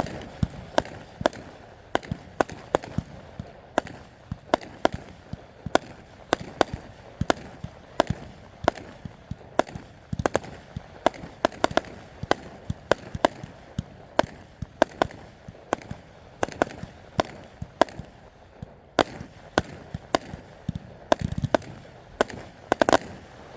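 A 64-shot consumer finale cake firing shot after shot: a steady run of sharp bangs, about two a second, with a quick cluster near the end before it stops.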